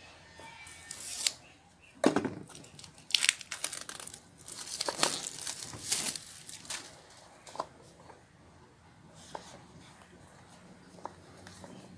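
Plastic shrink-wrap on an iPhone 6s Plus box being slit with a folding knife and torn off: crinkling film with several sharp rips and scrapes in the first half, dying down to faint crinkles and ticks after about seven seconds.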